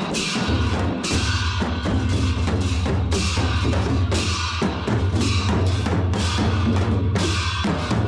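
Newar dhime baja: dhime drums beaten in a steady, driving rhythm, with crashes of large hand cymbals about once a second.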